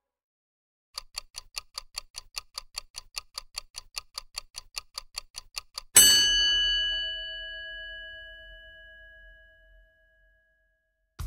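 Timer sound effect: a clock ticks evenly, about four to five times a second, for about five seconds. It ends in a single loud bell ding that rings on and fades away, marking time passing while the omelette cooks.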